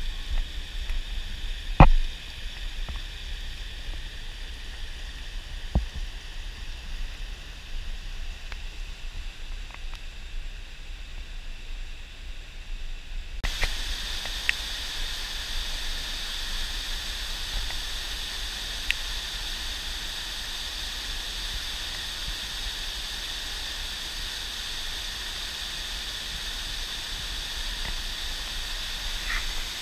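Small waterfall and cascade rushing over rock ledges, a steady hiss of falling water that turns brighter about halfway through. There is a sharp knock about two seconds in.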